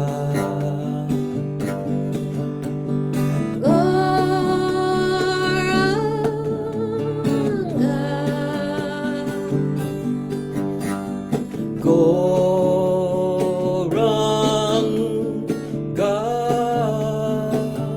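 Kirtan devotional music: strummed acoustic guitar under a slow melody of long held notes, sung without words, in phrases a few seconds long.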